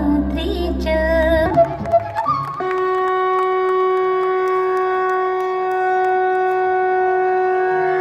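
A devotional song with singing over a bass-heavy backing breaks off about a second and a half in. About a second later a conch shell (shankh) is blown in one long, steady note.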